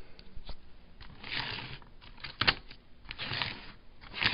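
Clicks, taps and short rustles of an HO-scale plastic model locomotive being handled and set down on the track, with one sharp click about two and a half seconds in.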